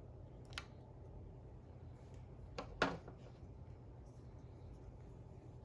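A few faint clicks and taps as statue pieces are handled and keyed into the statue's base, the loudest about three seconds in, over a low steady hum.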